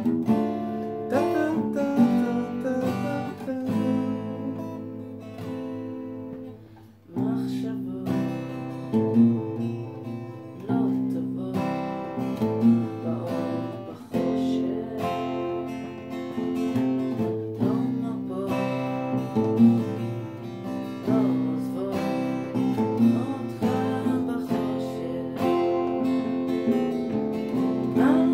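Steel-string acoustic guitar strummed over an acoustic bass guitar playing a bass line, with a brief break about seven seconds in before the playing resumes.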